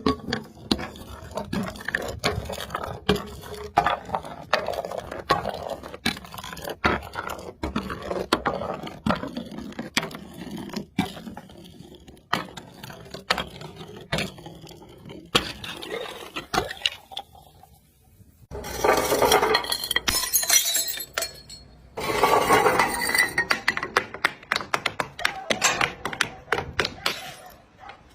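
Many separate sharp clicks, knocks and clinks of hard objects, then two long, louder stretches of dense crunching and crackling like something brittle breaking up.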